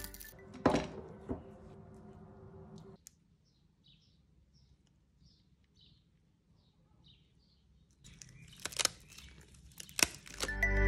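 A brittle dried sheet of white-asparagus-waste material cracking and crackling in gloved hands: two sharp cracks about a second in, then a cluster of crackles near the end as the fragile film is handled on a metal sieve.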